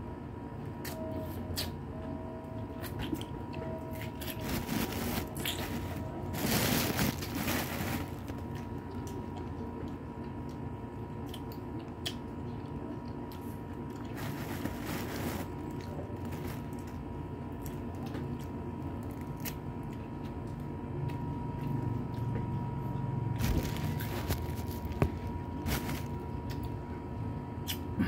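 Close-up eating sounds of rambutans: chewing and sucking the fruit's flesh, and hands pulling open the hairy rinds. There are scattered small clicks and a few louder rustling spells, about six, fourteen and twenty-four seconds in, over a faint steady hum.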